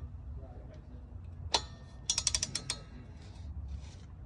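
Ratcheting torque wrench on the flywheel-to-crankshaft bolts: one sharp click about a third of the way in, then a quick run of about eight ratchet clicks near the middle.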